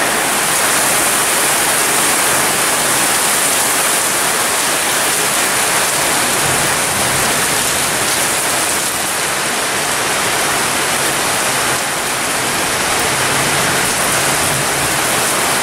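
Heavy, wind-driven rain pouring down steadily, a dense even hiss.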